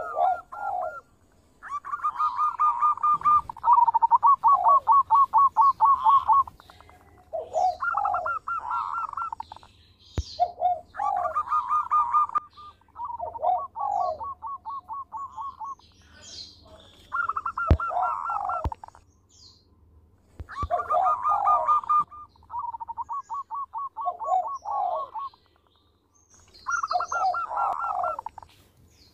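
Zebra dove (perkutut) singing its cooing song. It gives about nine phrases, each a fast run of rolling, stuttering coos with a few lower falling notes, and short pauses in between.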